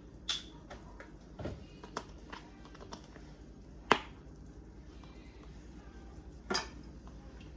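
A few sharp clicks and knocks of kitchen containers and utensils being handled, the sharpest about four seconds in, with a duller thump early on and another knock near the end, over faint room noise.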